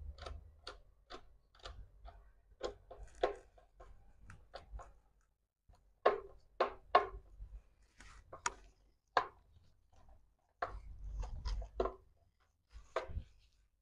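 Screwdriver tightening a terminal screw on a residual-current circuit breaker (RCCB): a string of irregular sharp clicks and ticks as the tip works the screw and knocks the plastic housing, with some dull handling rumble between them.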